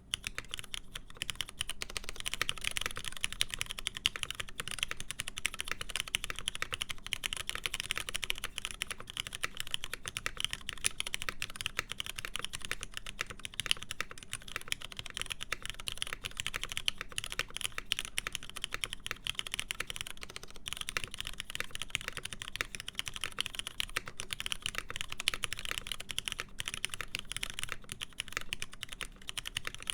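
Continuous fast typing on a mechanical keyboard with lubed linear Cherry MX Black switches, a full aluminum plate and PBT keycaps, a dense run of keystrokes with a brief pause about two-thirds of the way through.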